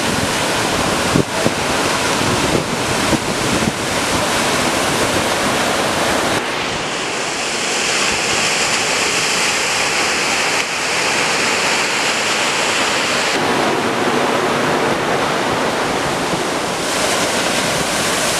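Loud, steady rushing noise of wind and water, with wind buffeting the microphone. Its character changes abruptly about six and a half seconds in and again about thirteen seconds in.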